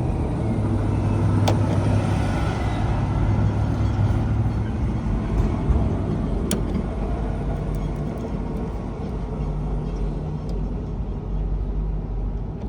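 Steady low rumble of a running vehicle, with a few faint sharp clicks over it.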